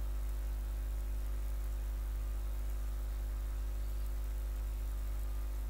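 Steady low electrical hum with a faint buzz and hiss, unchanging throughout: background noise of the recording setup.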